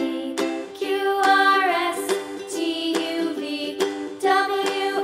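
Background music with a plucked-string melody.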